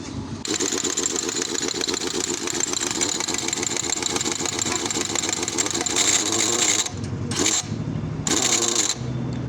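A Tata Hitachi excavator's diesel engine starts about half a second in and runs with a fast, even beat. The level dips briefly twice near the end.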